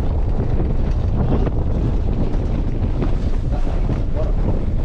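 Wind buffeting the microphone through an open car window, over the low, steady noise of the car driving across rough ground.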